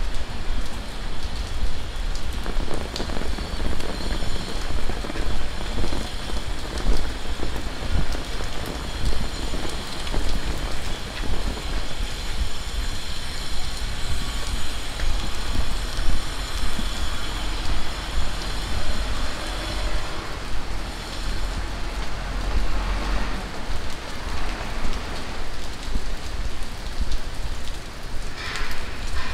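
Steady heavy tropical rain falling and pattering on surfaces, with a low rumble underneath.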